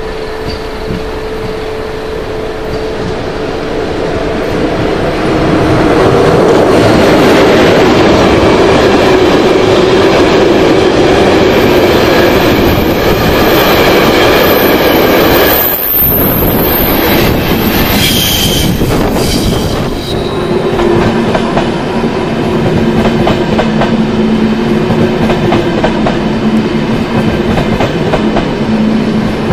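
A long freight train with a red electric locomotive passes close on a curve, its wheels clattering over the rail joints with a rising rumble. For a few seconds in the middle there is a high wheel squeal. In the last part a double-deck passenger train runs along the platform with a steady hum.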